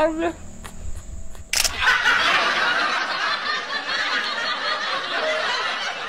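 A sharp camera-shutter click about a second and a half in, followed by continuous laughter.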